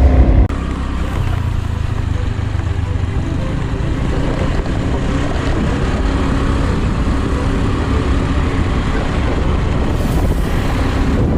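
A vehicle running steadily on the move: a continuous low rumble with wind noise on the microphone. Background music cuts off about half a second in.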